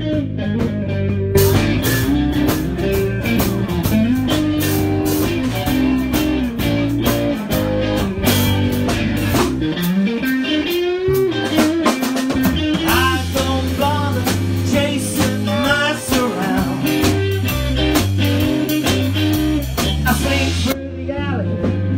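Live blues-rock band playing an instrumental break: electric guitar lead over a stepping bass line and drum kit, with a long sliding note a little before the middle.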